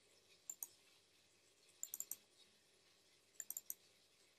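Computer mouse button clicking in quick groups over near silence: a double click about half a second in, then two runs of three or four fast clicks around two and three and a half seconds in.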